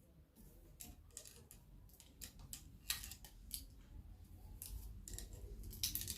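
Faint, irregular light clicks and scrapes of plastic ring-light and phone-holder parts being handled and fitted together, with a few sharper clicks about three seconds in and near the end.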